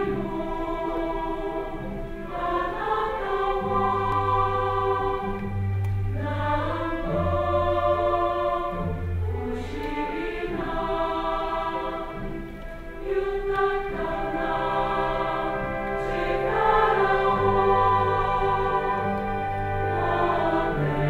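Choral music: a choir singing long held notes, with a low bass line coming in under it at times.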